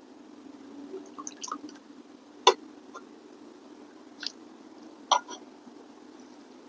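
Metal ladle clinking a few times against a stainless steel soup pot as soup is scooped and poured over noodles, with soft wet splashes. The sharpest clink comes about two and a half seconds in, and the sounds sit over a faint steady low hum.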